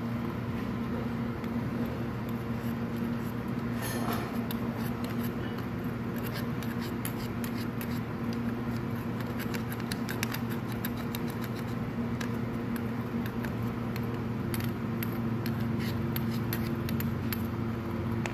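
Screwdriver tip scraping and clicking against the metal inside a dust-clogged Maruti Suzuki Omni throttle body, in many short scratchy clicks over a steady background hum.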